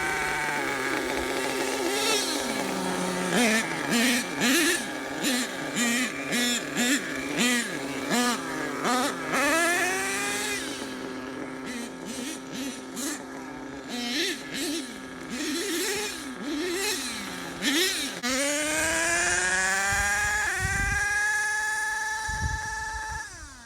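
Small nitro engine of an HPI Savage RC monster truck, revved up and down in quick repeated blips, then climbing to a long high-pitched run held for a few seconds before it drops off sharply near the end.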